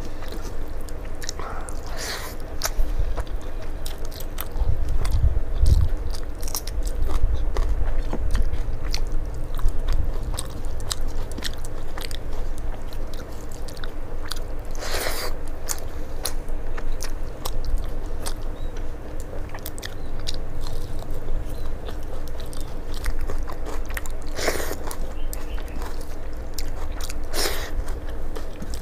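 A person chewing and biting mouthfuls of rice mixed with dal saag and vegetable curry, eaten by hand: a continuous run of close chewing sounds, with a few sharper, louder bites.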